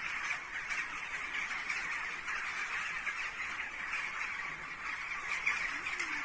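A large flock of birds calling all at once: a dense, unbroken chorus of many overlapping short calls.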